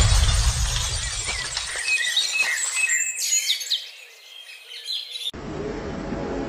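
Logo-intro sound effects: a deep whooshing swell fades out over the first two seconds, then a run of bright twinkling chimes plays as the logo appears. About five seconds in, it cuts abruptly to background music.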